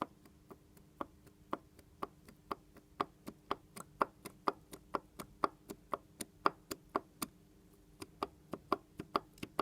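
Left connecting rod of a Jawa California two-stroke twin being rocked up and down by hand on its crankpin, giving a sharp metallic click about two to three times a second with a short pause near the end. The click is the rod knocking through more than a millimetre of play in its big-end needle bearing, whose cage has broken apart.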